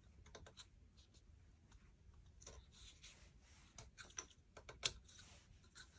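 Faint, scattered light clicks and taps of small wooden kumiko strips being pressed and fitted into a lattice frame. The sharpest click comes about five seconds in.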